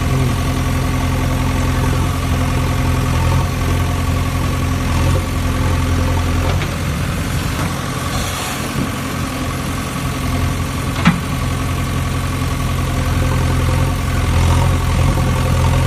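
A steady, low engine-like idling drone, easing off briefly midway, with one sharp click about 11 seconds in.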